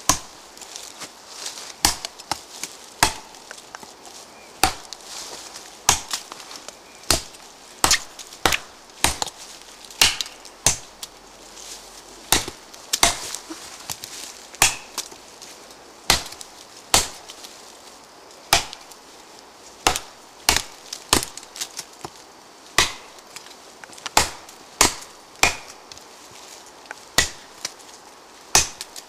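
ParangXL parang chopping into a standing tree trunk about 12 cm thick: a long run of sharp blade strikes into the wood, about one to two a second, slightly uneven in pace and force.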